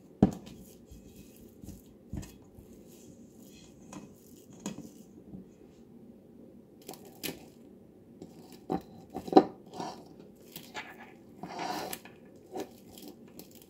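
A spatula knocking and scraping against a stainless-steel mixing bowl as raw ground-meat mixture is scooped onto a plate, in scattered sharp clicks and taps, the loudest just after the start and about nine seconds in, with a brief rustle near the end.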